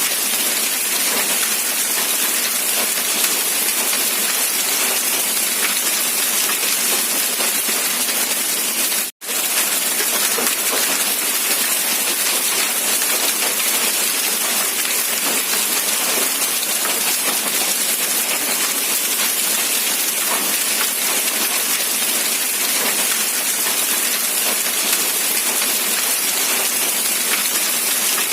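Steady rain falling, an even hiss of rain with a brief break to silence about nine seconds in.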